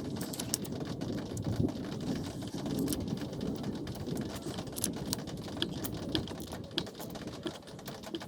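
A new brake master cylinder being bench-bled: its piston pumped in and out with a screwdriver, with liquid splashing and gurgling as brake fluid is drawn in and air is pushed out, and many scattered small clicks and taps.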